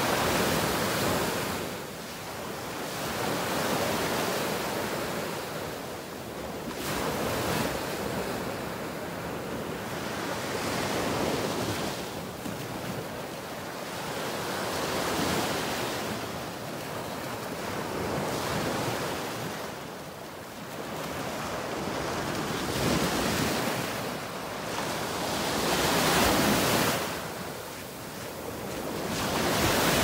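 Small surf waves breaking and washing up a sandy beach, the rush swelling and fading about every three to four seconds, with some wind on the microphone.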